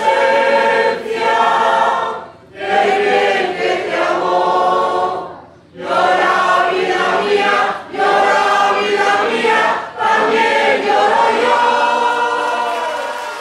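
Mixed amateur choir, mostly women's voices, singing a Spanish habanera in Spanish in phrases of two to three seconds with short breaks between, the last phrase drawn out into a long held note that fades at the end of the song.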